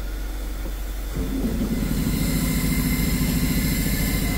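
A steady, low engine hum, like an idling vehicle, starts abruptly about a second in, with a faint high hiss joining a second later.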